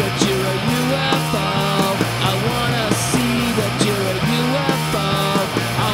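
Garage punk rock song from a demo recording: a full band playing, with a melody line that slides up and down in pitch over a steady low part.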